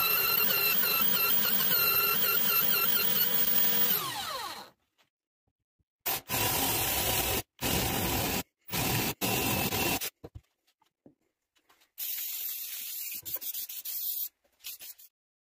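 Belt sander running with a wavering high squeal as a wooden block is pressed against the belt, cut off abruptly about four and a half seconds in. Then several short, abruptly cut bursts of a cordless drill boring into the wood with a spade bit, and a fainter noise near the end.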